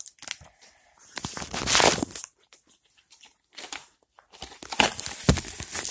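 Plastic blister packaging crinkling and rustling in irregular stretches as it is handled and worked open, with a sharp knock near the end.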